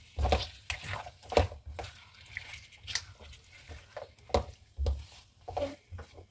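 Silicone spatula stirring and scraping beef pieces in masala around a metal pan while they fry: irregular scrapes and soft thuds, about two a second.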